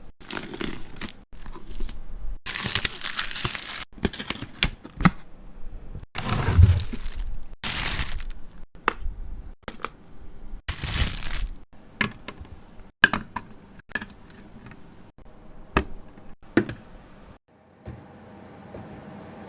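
Packaging being opened and handled by hand: bursts of crinkling and tearing wrapping, with many sharp clicks and taps of small items and packaging.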